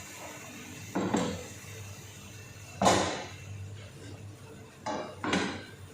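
Kitchen pot and cooking utensil clattering: four knocks and scrapes, one about a second in, one near three seconds, and two close together near the end.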